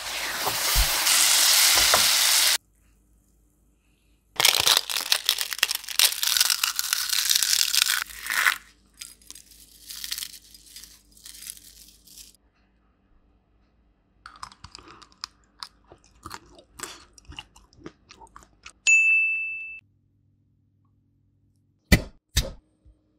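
A sweet mixture with sesame seeds and cashews sizzling in a stainless steel pan, cut off sharply after a couple of seconds, followed by a second long stretch of loud hissing. Then scattered light crackles and crunchy clicks, a single short ding that rings and fades, and two sharp knocks near the end.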